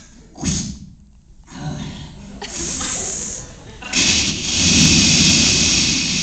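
Mouth-made sound effects imitating bathroom water: a short vocal swoop, a few brief hisses, then a long, loud rushing hiss like a flush or running water starting about four seconds in.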